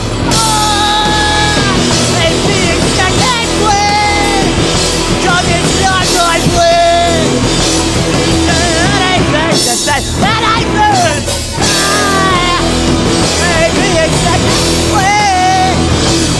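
A rock band playing live: a singer's voice over electric guitar, electric bass and a drum kit, loud and continuous.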